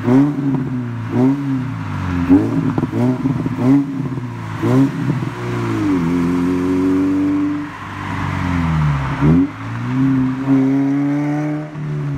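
2006 Subaru Impreza 2.5i's naturally aspirated 2.5-litre flat-four, run through a muffler delete with dual 3-inch blast pipes, revved in a string of quick blips. It then pulls under acceleration twice, with a sharp drop in revs between the two pulls.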